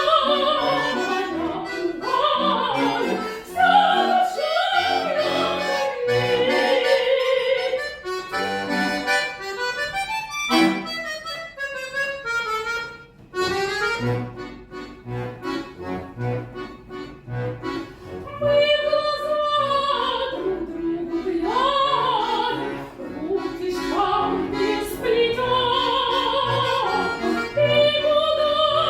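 Classical-style solo singing with wide vibrato, accompanied by a bayan (Russian button accordion) holding chords. Around the middle the voice drops back for several seconds while the accompaniment carries on, then the singing returns.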